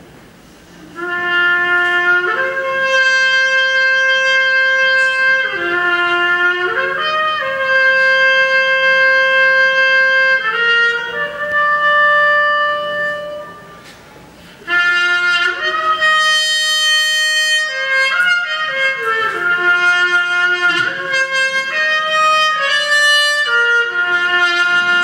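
Solo trumpet playing a slow melody of long held notes in two phrases, with a short break about 14 seconds in.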